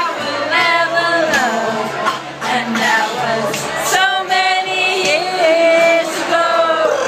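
A woman singing loudly over backing music, karaoke-style, holding some notes for about a second.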